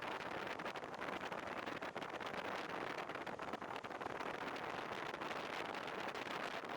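Portable industrial air conditioner running, its fan blowing a steady rush of air with no distinct clicks or changes.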